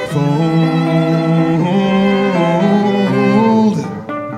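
A song: a long sung note over bowed strings, violin and cello. Near the end the strings drop back and acoustic guitar strums come in.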